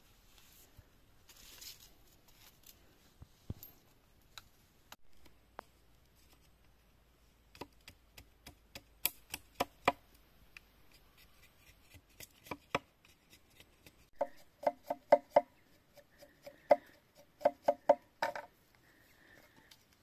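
Machete blade striking bamboo on a bamboo log: scattered sharp knocks that come thicker in the second half. The last few seconds bring quick clusters of strikes with a hollow ringing tone.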